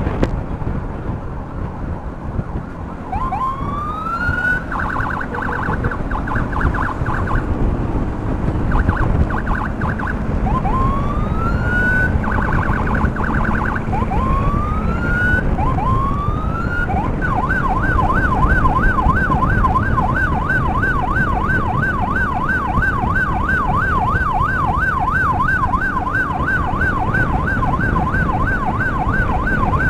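Electronic emergency siren. It gives several rising whoops broken by bursts of rapid chirping, then, from about halfway, a fast yelp going up and down several times a second, over steady wind and road noise.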